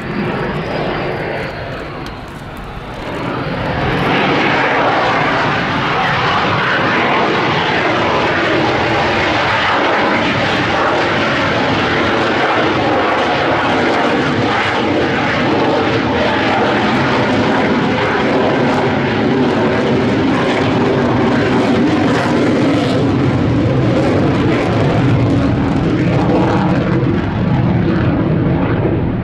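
Twin General Electric F414 turbofan engines of an F/A-18F Super Hornet during a low display pass. A thin rising whine in the first two seconds, then from about four seconds in loud, steady jet engine noise; the highest hiss drops away near the end.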